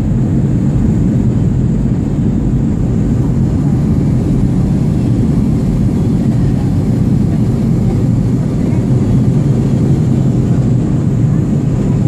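Aircraft in flight: a steady, loud low rumble of engine and airflow noise with a constant hum underneath.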